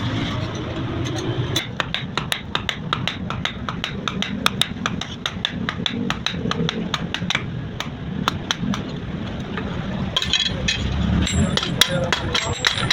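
Hammer striking steel in quick, even blows, about three a second, as a blade is forged by hand. Voices murmur underneath.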